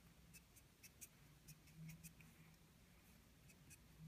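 Felt-tip marker drawing short strokes on paper: faint, irregular little scratches and ticks as the tip touches down and lifts.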